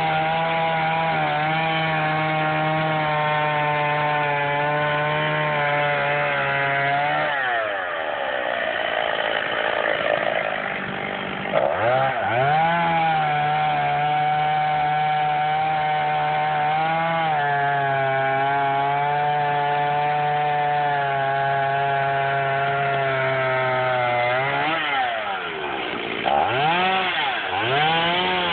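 Chainsaw running at high revs, cutting wood. Twice the engine note drops away and climbs back up, about a quarter of the way in and again near the end.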